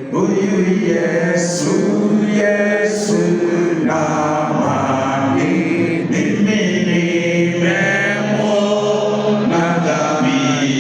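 A choir of voices singing a chant-like song.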